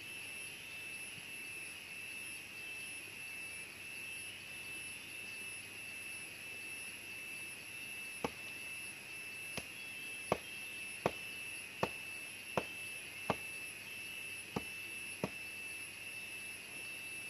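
Steady high-pitched drone of jungle insects. About halfway through, a run of about ten sharp knocks begins, evenly spaced under a second apart.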